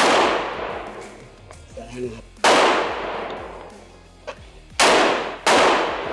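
Four rifle shots from shooters on a covered firing line. Each is a sharp, loud crack with a long ringing echo. The last two come close together, less than a second apart.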